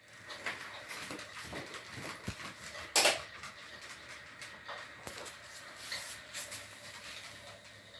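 Clicks and knocks of objects being handled in a small room, with one sharp, loud knock about three seconds in.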